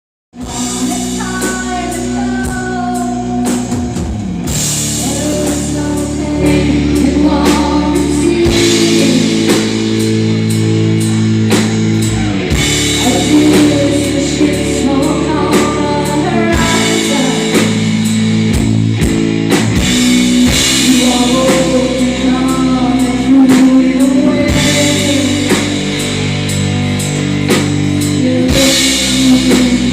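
Rock band playing live with singing, drums and guitar, a sound-check run-through.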